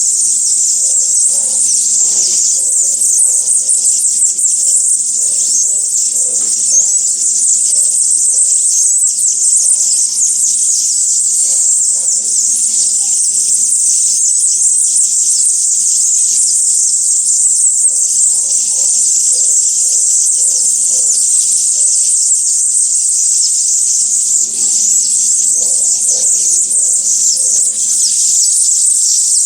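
Outdoor garden ambience of birds visiting a window: a loud, steady high-pitched buzz, with runs of faint low repeated calls several times.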